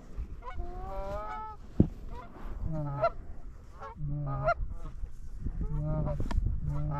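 Geese honking repeatedly, a run of rising and falling honks with a few lower calls among them. A sharp click cuts through about two seconds in.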